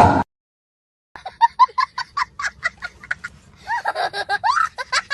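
A quick run of short, high-pitched laughs, about four a second, after the sound cuts out to silence for most of the first second.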